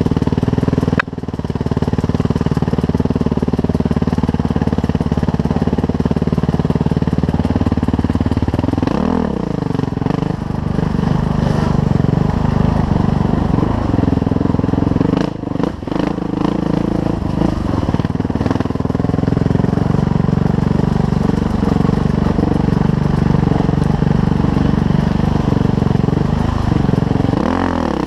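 Suzuki RM-Z450 four-stroke single-cylinder dirt bike engine running steadily under load. The revs drop and climb again about nine seconds in and near the end.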